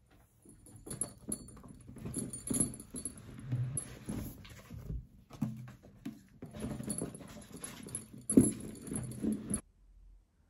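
Rustling and knocking of things being handled and packed into a leather tote bag, with light metallic jingling and one sharper knock near the end.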